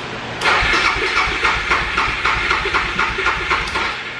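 Suzuki DR650 single-cylinder engine revved up suddenly with the throttle, running with an even pulsing about four times a second for roughly three and a half seconds, then dropping back to idle. It is running on its original main jet, cleaned and refitted in the rebuilt carburetor.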